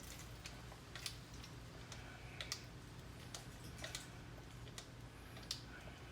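Hand-operated gear oil pump clicking faintly as it is stroked, irregular sharp clicks about once a second, over a steady low hum.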